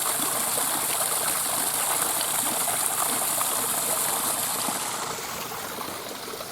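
Steady rushing and splashing of running water from a small waterfall. The high hiss fades and the whole sound drops off about five seconds in.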